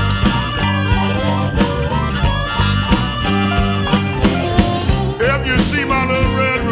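Electric blues band playing an instrumental passage: a lead line of bent notes over bass and a drum beat.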